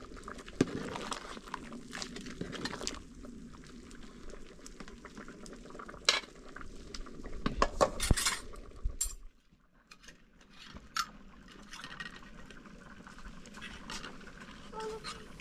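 Metal kitchen utensils clinking and scraping against pots and dishes, with scattered sharp clinks. The sound drops almost away for a moment about nine seconds in.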